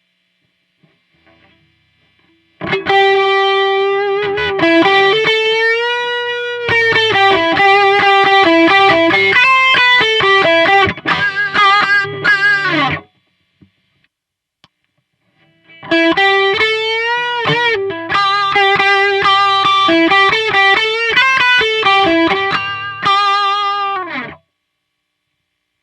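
Electric guitar through an overdrive pedal playing a single-note lead line with string bends and vibrato, in two phrases with a pause of about three seconds between them.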